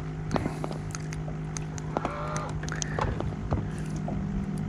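A steady low hum with scattered small clicks from the rod and jig being handled. About two seconds in there is a short, low, groan-like tone, and another comes briefly about a second later.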